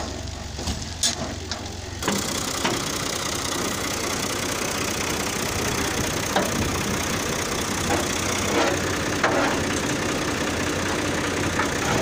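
Tractor engine running steadily while it powers the tipping trolley's hydraulic jack, with a few scattered knocks. The sound changes abruptly about two seconds in, becoming a denser, noisier engine sound.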